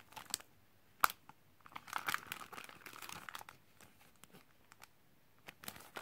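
Clear plastic sticker packaging crinkling and crackling as it is handled. There is a sharp click about a second in, a longer stretch of crinkling in the middle, and scattered crackles near the end.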